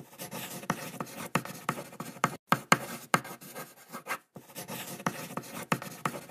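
A pen scratching across paper in short strokes, with frequent sharp taps and clicks, in three stretches cut abruptly together.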